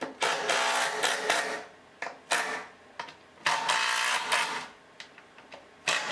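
Cordless drill driving screws into a birch plywood cabinet base. The motor whirs in four short runs of about a second each, stopping briefly between screws.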